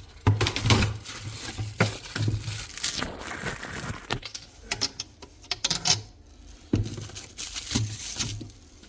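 Irregular clicks, knocks and crinkling as plastic parts are handled, with a few dull thumps.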